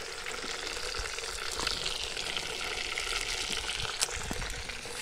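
Fish frying in hot oil: a steady sizzle with small scattered crackles, over a faint steady hum.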